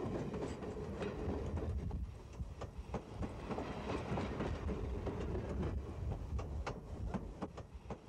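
Steam train running on rails: a steady low rumble with irregular clicks of the wheels over the rail joints.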